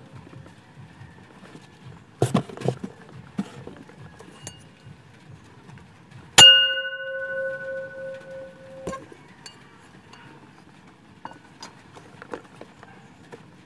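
A small bell struck once about six seconds in, ringing clearly for a couple of seconds before it is stopped. It is the conditioning cue that signals the rodent to go to its house. A few light knocks come a few seconds before it.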